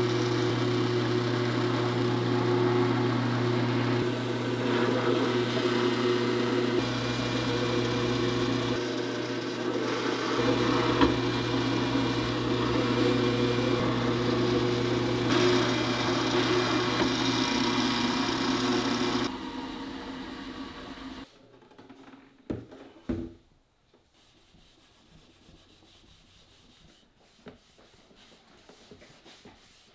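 A woodworking machine running steadily with a low hum and a grainy noise of wood being worked, winding down and stopping about two-thirds of the way through. After that come two sharp knocks and faint rubbing on wood.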